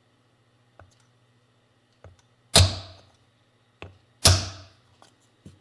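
Mallet blows on a wooden block laid over an oil seal, driving the left crankshaft seal into a Yamaha YL1's aluminium engine case. Two heavy blows land about two and a half and four seconds in, with lighter taps before and between them.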